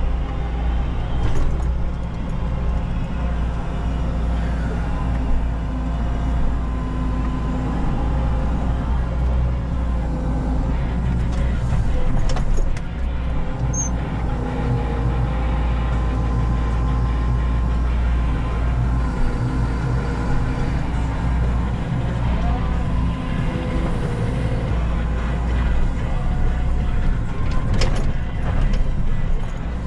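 Menzi Muck M335 walking excavator's engine and hydraulics running steadily, heard from inside the cab while the boom and bucket work among rocks. A few short, sharp knocks come through, one near the start, one in the middle and one near the end.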